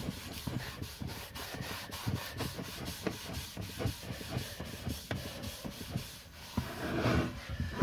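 Cloth rubbing quickly back and forth over an oiled wooden box lid, about five strokes a second, wiping off the excess finishing oil.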